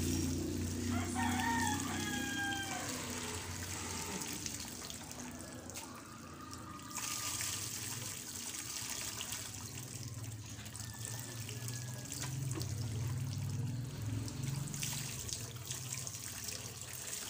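Water poured from a plastic dipper splashing over a dog being bathed, a steady splashing hiss from about seven seconds in. A rooster crows once, about a second in.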